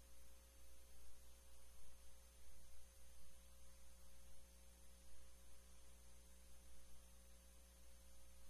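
Faint steady low hum with an even hiss and a few thin, high steady whines, the background noise of a recorded television broadcast, with nothing else happening.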